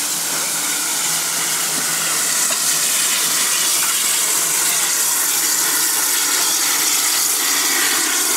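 Steam locomotive (0-6-0 Lehigh Valley Coal #126) venting steam in a steady, loud hiss that grows a little louder about two and a half seconds in.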